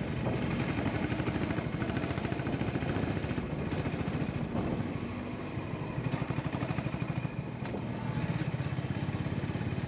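Honda GB350 motorcycle's single-cylinder engine running under way, a steady pulsing exhaust beat that dips and swells a few times with the throttle.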